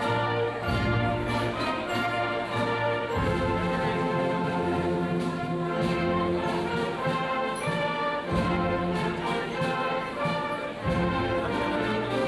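Orchestral music with brass instruments: held chords over a bass line that moves to a new note every second or two.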